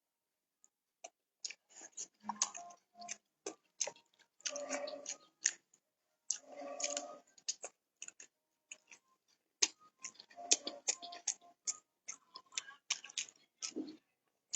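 Faint, irregular clicks and taps, several a second at times, with a few faint, muffled low sounds in between.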